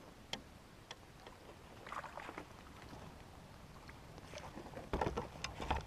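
Landing net being lifted from the water with a small pike in it: scattered light clicks and splashes, then a louder cluster of splashing and knocking near the end.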